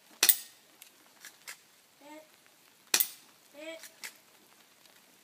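Spring-powered airsoft Beretta 92FS pistol firing twice, nearly three seconds apart, each shot a sharp snap. Between the shots come short squeaky creaks as the slide is pulled back to cock the spring.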